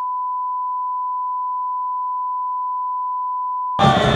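A steady, unbroken censor beep, one high tone at an even level that blanks out the original sound. Near the end it cuts off abruptly and loud crowd chanting and cheering comes in.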